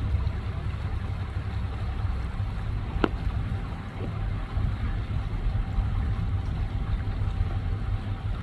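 Low, gusty rumble of wind buffeting the microphone, with one sharp click about three seconds in.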